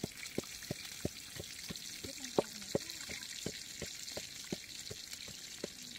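Wooden pestle pounding in a mortar, a steady run of knocks at about three strokes a second, over a steady rush of water.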